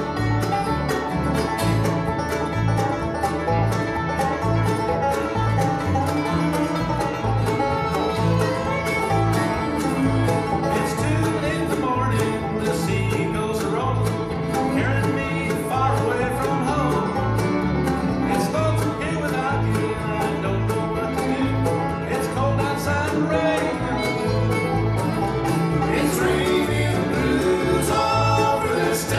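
A bluegrass band playing live: banjo, acoustic guitar, mandolin, fiddle and upright bass, the bass plucking a steady beat underneath.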